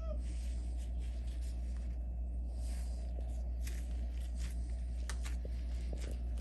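Light scratching and tapping of hands at work on the layout's rocks, over a steady low hum.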